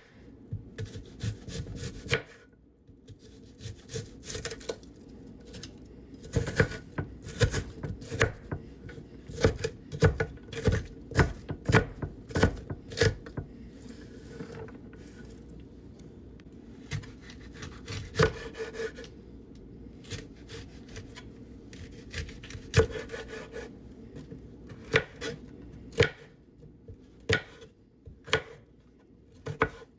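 Kitchen knife chopping an onion on a cutting board: irregular runs of sharp knocks, with short pauses between the runs.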